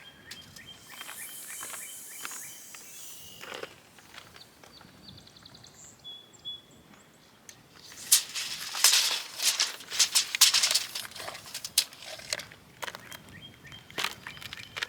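Birds chirping outdoors, with a few seconds of dense rustling and knocking from about eight seconds in.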